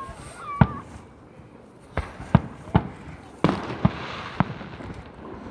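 Aerial fireworks going off: about seven sharp bangs, several in quick succession, followed by a crackling spray a little past halfway.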